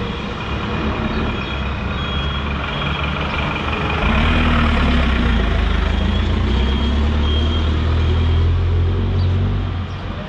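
Road traffic with a heavy vehicle's engine running close by. The engine gets louder about four seconds in and drops back near the end, with a few short high beeps over it.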